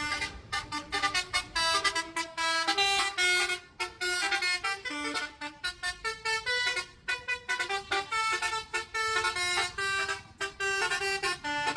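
Bus telolet horn playing a fast tune: a quick run of short horn notes that keep changing pitch, with only brief gaps.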